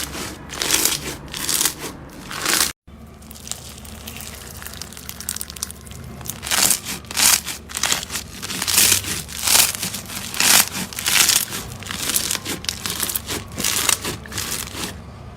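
Slime pressed and squeezed by hand, giving a run of short crackling, crunchy squishes about two a second.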